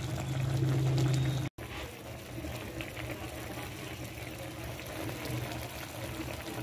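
Coconut milk at a boil in a pot of crabs and vegetables, bubbling steadily. A low hum runs underneath for the first second and a half and stops at a sudden brief dropout.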